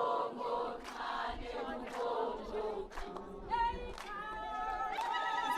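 A group of voices singing together, with a sharp beat about once a second.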